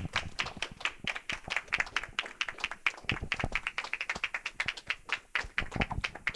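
A small audience applauding, with single hand claps standing out in a dense, even patter.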